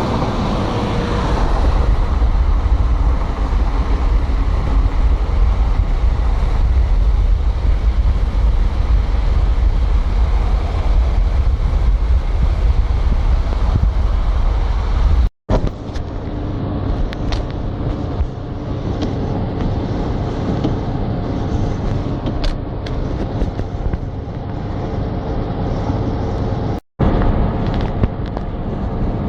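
Steady vehicle road noise with a heavy low wind rumble on the microphone. The sound drops out abruptly about halfway through and again near the end, and after the first dropout the rumble is lighter and a faint steady hum shows through.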